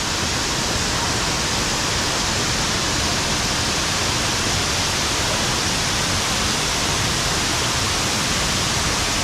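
Waterfall pouring over a terraced rock wall: a steady, even rush of falling water.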